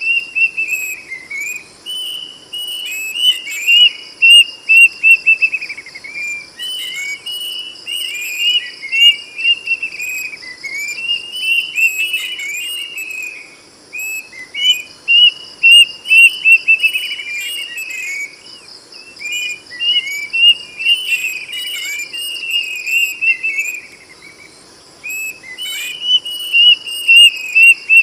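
Plaintive cuckoo (kedasih) singing loud, whistled phrases of quick notes, a new phrase every few seconds. Under it runs a steady high trill of insects.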